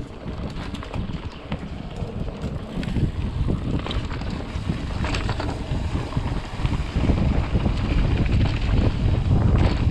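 Wind buffeting a head-mounted action camera's microphone while riding a mountain bike down a dirt trail, with the low rumble of tyres on the ground and a few short rattles from the bike. It gets louder about seven seconds in.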